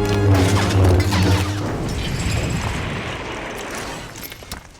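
Orchestral film score with sustained low tones, giving way to metallic clanking and crashing that fades toward the end.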